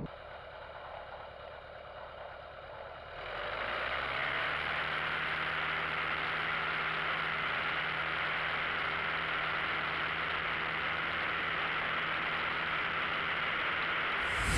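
Citabria 7GCBC's engine and propeller running steadily at low taxi power, with a steady low hum under a rushing wash of air. It is quieter for the first three seconds, then louder and steady as heard from outside the plane beside the wing.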